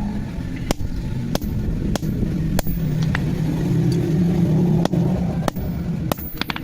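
Blacksmith's hammer striking metal in regular blows, about one every two-thirds of a second, with a pause of a second and a half in the middle. A steady low hum from a motor runs underneath.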